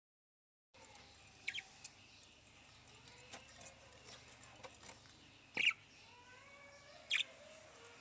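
Budgerigars in a nest box giving a few short, high, squeaky chirps over a faint background, the loudest about five and a half seconds in. The sound starts after a moment of silence.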